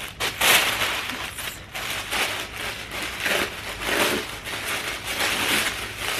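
Packaging being torn open and crumpled by hand, a rustling, crackling noise that comes in several uneven surges.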